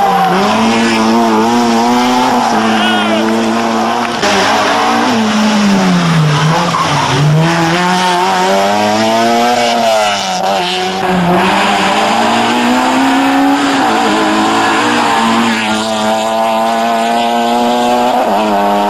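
Opel Corsa A GSi four-cylinder engine held at high revs under hard driving. Its steady high note drops and climbs back a couple of times as the revs fall and build again.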